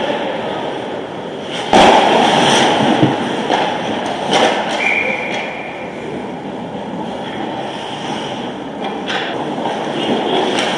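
Ice hockey rink game sound: a steady scraping hiss of skates on the ice, with sharp clacks of sticks and puck. A loud bang comes about two seconds in, and smaller knocks follow later.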